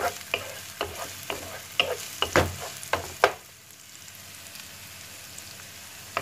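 Chopped onion and garlic sizzling in oil in a non-stick frying pan, stirred with a wooden spatula that scrapes and taps the pan in sharp strokes. The stirring stops a little past halfway, leaving a steady sizzle.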